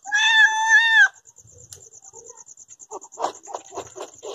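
A cat meows once, a loud, steady call about a second long. From about three seconds in, a cat chews raw meat, with short wet bites about four a second. Crickets chirp steadily in the background.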